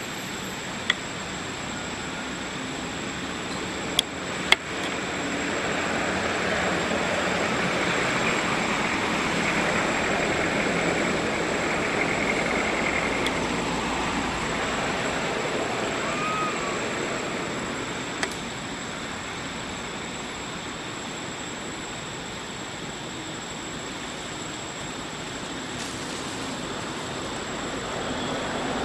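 Steady rushing outdoor background noise that swells for a while in the middle, broken by a few sharp clicks: three in the first five seconds and one more later.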